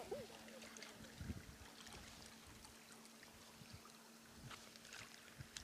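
Near silence: faint water sounds at the rocky shoreline, with a faint steady hum and a few light ticks.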